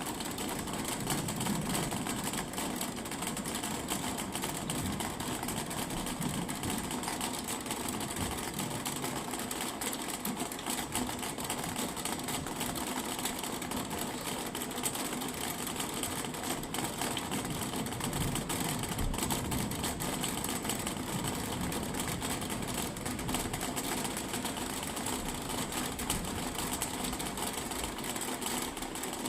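Thunderstorm rain falling steadily, a dense, even patter of drops.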